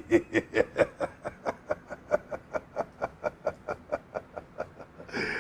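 A person laughing in one long run of quick, short 'heh' sounds, about five a second, slowly fading.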